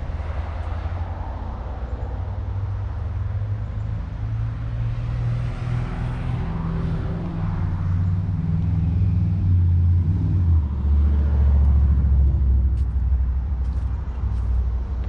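Low rumble of a motor vehicle engine, shifting in pitch and growing louder about ten seconds in before easing off near the end.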